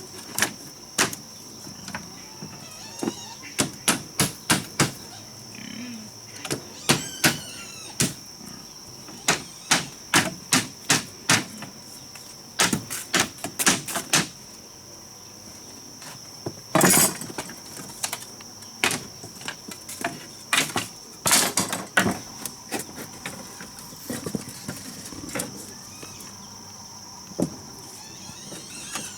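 Irregular sharp knocks of building work on wood, coming in quick clusters of several a second with pauses between, two louder strikes near the middle. A steady high-pitched hum runs underneath, with a few short chirps early on.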